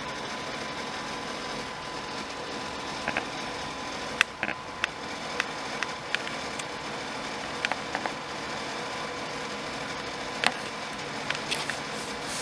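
Scattered light clicks and taps, about fifteen in all and bunched in small groups, over a steady hiss: small hard parts being handled.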